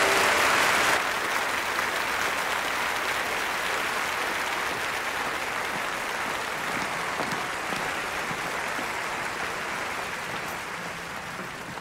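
Large audience applauding, loud for the first second, then dropping a little and slowly fading.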